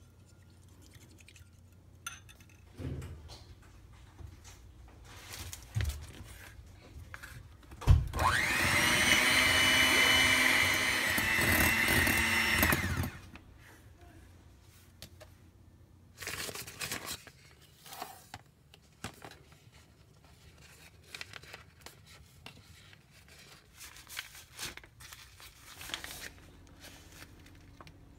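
An electric hand mixer whipping cream: it starts about eight seconds in, its pitch rising as it comes up to speed, runs steadily for about five seconds, then stops. Light clicks and knocks of kitchen utensils against glass are heard before and after.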